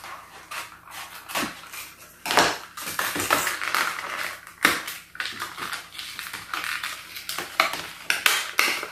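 Cardboard and plastic toy packaging being handled and opened: irregular rustling, crinkling and scraping, broken by a few sharper clicks and knocks.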